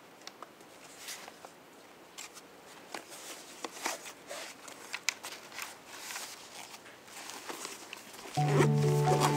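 Irregular light clicks, taps and rustles, growing busier over time. Music with sustained tones comes in about eight seconds in.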